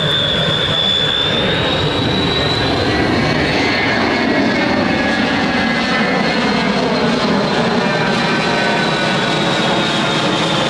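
C-141B Starlifter's four TF33 turbofan engines in a low flyby: loud, steady jet noise with a high whine that rises a little about two seconds in and starts to drop at the very end as the jet passes overhead.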